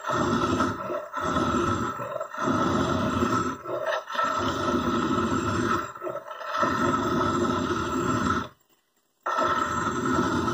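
Edge of a steel file held against a nut spinning on a car alternator's shaft, the alternator run as a motor to serve as a makeshift lathe: a harsh scraping grind that comes in repeated passes of one to two seconds with short breaks as the file lifts off. The sound cuts out completely for under a second about eight and a half seconds in.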